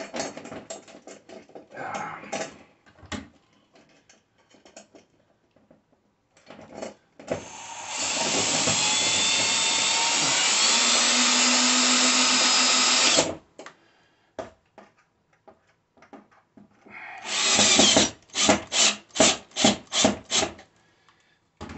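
Cordless drill driving a bolt through a TV wall-mount bracket into the back of a TV. It runs steadily for about five seconds, then after a pause gives a short run and a quick string of about eight short bursts as the bolt is snugged tight. Before the drill starts there are light clicks and knocks of the spacer and bolt being fitted by hand.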